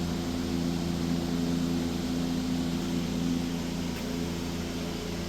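Steady low mechanical hum, a machine running with several steady tones and no change in pitch or level.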